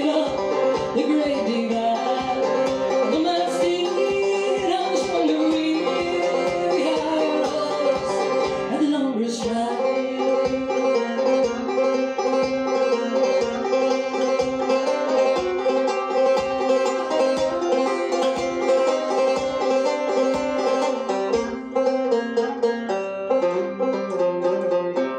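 Banjo played live in a fast bluegrass picking break, with a steady low thump keeping the beat underneath.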